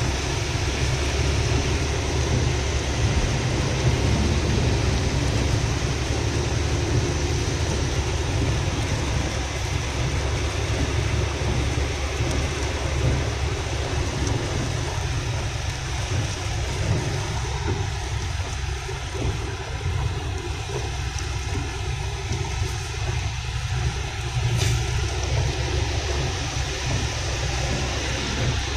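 Road noise inside a car cabin driving through rain on a wet highway: a steady low rumble of engine and tyres under the hiss of tyres on the wet road and rain on the car.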